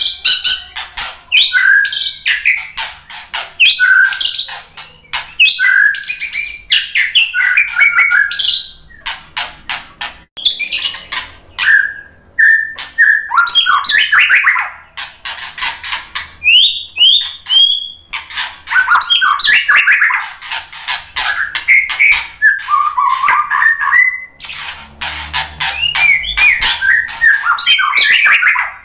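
White-rumped shama (murai batu) singing a long, varied song of loud whistles and fast, harsh chattering phrases, with a few brief pauses.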